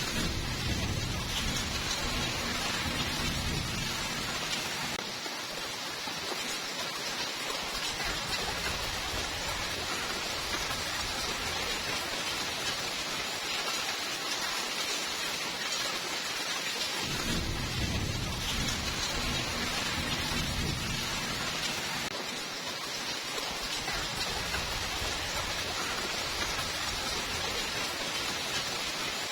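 Steady, even rainfall, with a low roll of thunder in the first few seconds and another from about 17 seconds in.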